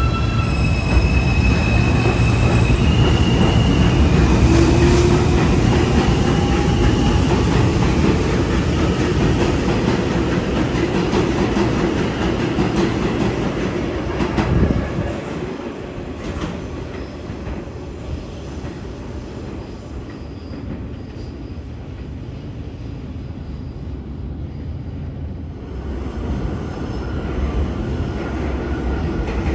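New York City Subway R160 train pulling out of an elevated station, a steady rumble of wheels on the rails with high-pitched wheel squeal in the first few seconds. The rumble fades about halfway through and builds again near the end.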